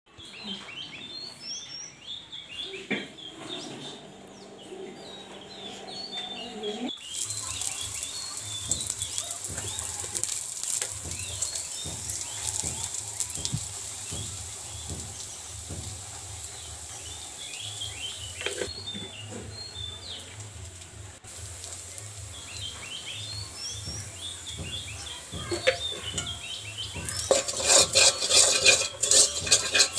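A metal spatula stirs onions and chilli powder in an iron wok, with a few light spoon clinks first and loud rapid scraping and clattering near the end. Birds chirp in the background through much of it, and a steady hiss with a low hum runs under the middle part.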